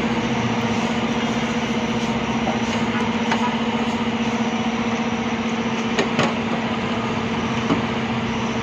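Steady mechanical hum holding one constant pitch, with a few light clicks and knocks about six seconds in and again near the end.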